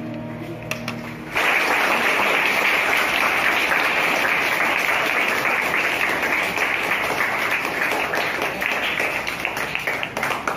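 A held musical chord dies away, then about a second and a half in an audience starts clapping, a steady round of applause that eases off near the end.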